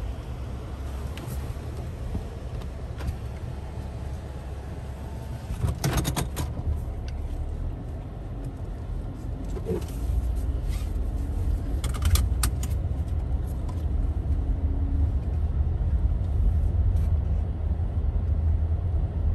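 Car heard from inside the cabin, its low engine and road rumble growing louder about halfway through as it drives off. A few brief clicks and rattles come about a third of the way in and again near the middle.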